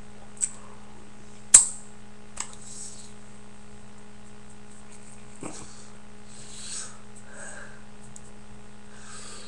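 Hands tapping and clapping against each other in sign language: three sharp taps, the loudest about a second and a half in, over a steady low electrical hum.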